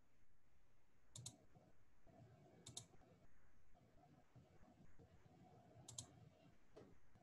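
Near silence with a few faint clicks: a quick double click about a second in, another near three seconds, and another about six seconds in, then a single click near the end.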